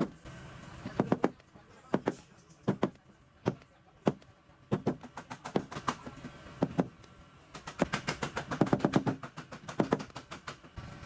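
Irregular clicks, taps and knocks of small hard objects being handled, some coming in quick clusters.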